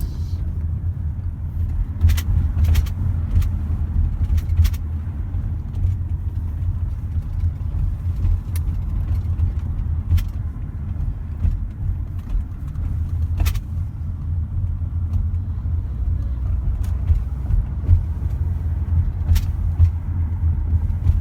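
Road noise inside a moving car's cabin: a steady low rumble of engine and tyres, with a few light clicks here and there.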